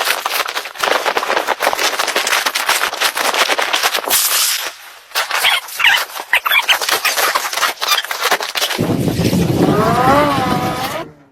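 Firewood burning in a tent stove, crackling and popping rapidly and unevenly. About three-quarters of the way through a wavering pitched sound with a low rumble comes in, and everything stops suddenly just before the end.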